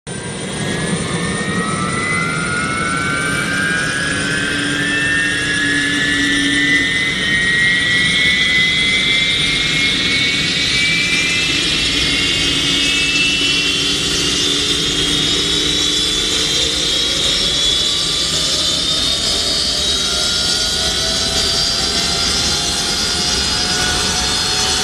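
Ilyushin Il-62M's rear-mounted Soloviev D-30KU turbofan engines running loud, with a whine that climbs slowly and steadily in pitch over a constant rush as the engines spool up.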